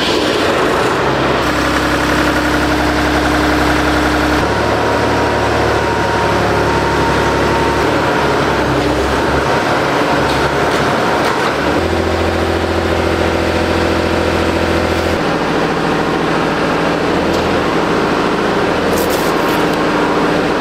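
An engine running loudly and steadily, its note jumping abruptly to a new steady pitch every few seconds.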